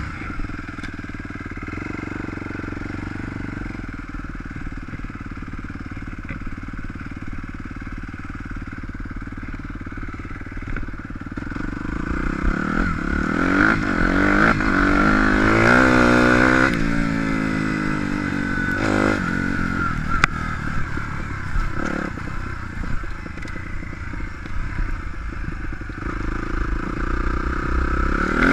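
Suzuki RM-Z250 four-stroke single-cylinder motocross bike engine, heard close up from the handlebars. It runs at low, steady revs at first, then revs up and down hard through the gears from about twelve seconds in, settles back, and picks up again near the end.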